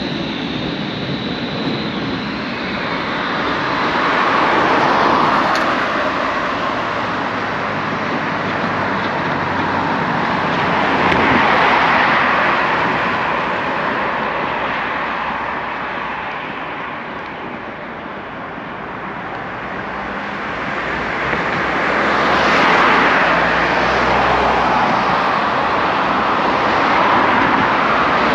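Road traffic on a busy street: a continuous wash of tyre and engine noise that swells as vehicles pass close by, several times over, and dips in between.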